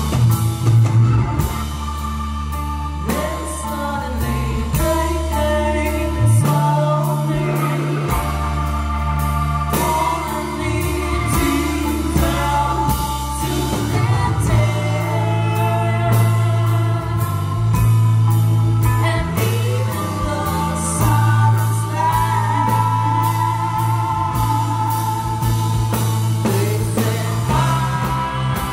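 Rock band playing live: a woman sings lead over bass, guitar and drums.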